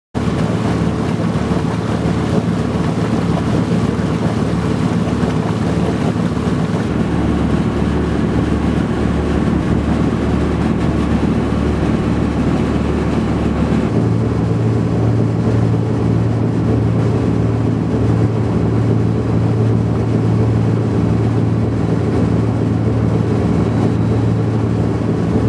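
Sailboat's engine running steadily while motoring, a continuous low hum with wind noise on the microphone; its pitch steps up about halfway through.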